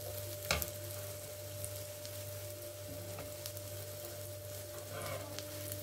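Banana pancakes frying over medium heat in a nonstick pan, a soft steady sizzle. Metal tongs click against the pan about half a second in, with a few lighter taps later, over a faint steady hum.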